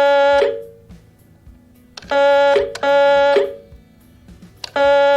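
Electronic ringing tone sounding in pairs of short rings, each pair repeating about every three seconds: a double-ring pattern.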